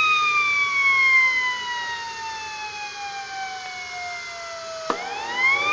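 Kingtech K80E model jet turbine in its cool-down cycle after shutdown. The whine falls steadily in pitch as the rotor coasts down, then about five seconds in a click comes as the starter motor kicks in again and the whine rises quickly.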